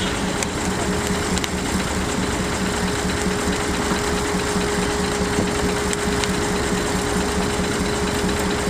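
Advance Rumley steam traction engine running a belt-driven sawmill, with a quick, even beat and a steady tone over it.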